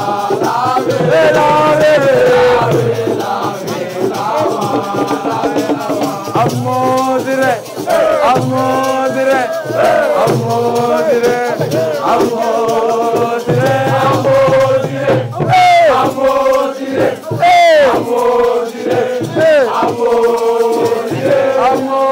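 A group of voices singing a call-and-response chant together, accompanied by a shaken rattle.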